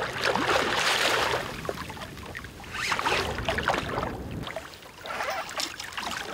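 A large pike thrashing at the surface beside a boat: bursts of splashing and slapping water, loudest in the first second and again about three seconds in, as it is played to the landing net.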